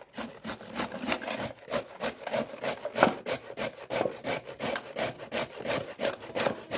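Raw beetroot being grated on a stainless steel box grater: a steady run of rasping strokes, about three a second.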